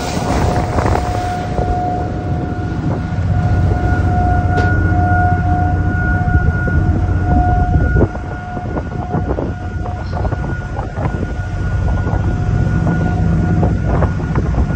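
Car ferry's machinery running: a steady low drone with a continuous high whine over it. A few short knocks and clanks are heard in the second half.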